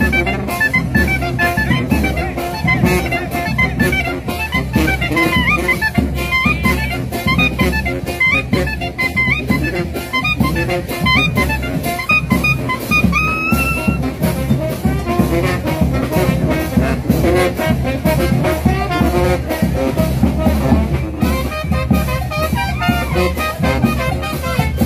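Nicaraguan chichero brass band playing live: brass horns over drums keeping a steady beat.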